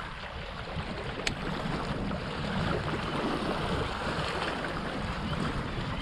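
Wind buffeting the microphone over small waves lapping against a rocky lake shore, with a single sharp tick about a second in.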